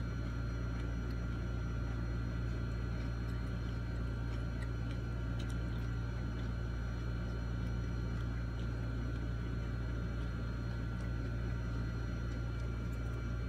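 Steady low hum with a few faint, scattered clicks.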